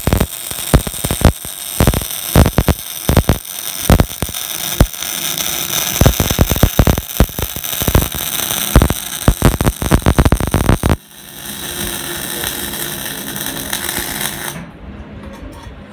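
MIG welding arc crackling and spitting as a bead is run on steel plate. About eleven seconds in the crackle gives way to a steadier, quieter hiss, and the arc stops near the end.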